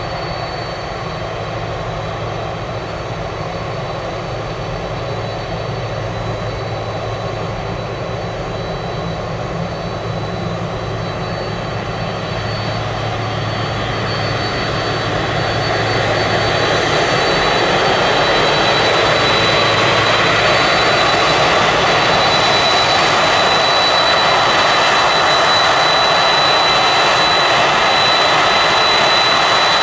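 Boeing 767-300ER's twin General Electric CF6-80C2 turbofans at taxi power: a steady jet roar with a thin high whine, growing louder about halfway through as the airliner turns and taxis toward the listener.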